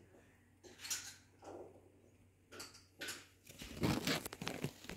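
A plastic bag crinkling and squishing as ginger paste is squeezed out of it into a glass jar, in soft scattered rustles, then a louder run of rustling and dull knocks of handling from about three and a half seconds in.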